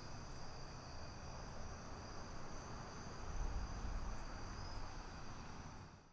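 Faint, steady chorus of crickets, a high continuous trilling, over a low outdoor rumble, fading out near the end.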